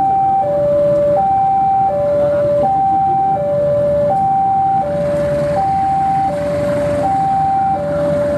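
A two-tone electronic warning alarm, alternating evenly between a high and a low note about every 0.6 s, over the low rumble of a diesel locomotive that swells as it approaches.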